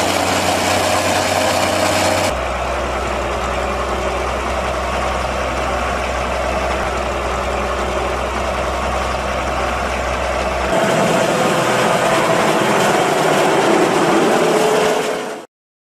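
Heavy diesel engines running steadily: the County 1124 four-wheel-drive tractor at work leveling a maize silage clamp, then the engine of a Fox Max II self-propelled forage harvester. The sound changes abruptly about two seconds in and again about ten and a half seconds in, and cuts off just before the end.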